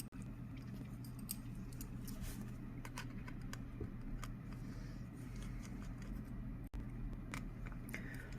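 Scattered light clicks and ticks of small metal repair tools and phone parts being handled at a workbench, over a steady low hum.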